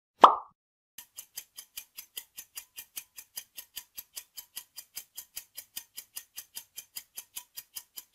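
A short pop sound effect as a quiz picture pops in, then a countdown timer's clock-tick sound effect: short, even ticks at about five a second.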